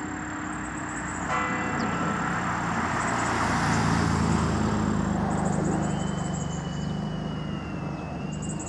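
A passing car whose noise swells to a peak about three to five seconds in and then fades. Under it, a church bell strikes once about a second in and its tones linger.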